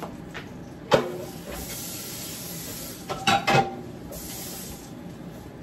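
Off-camera kitchen work: a sharp clack about a second in, then a spraying hiss that comes and goes, with a few short clinks and knocks near the middle.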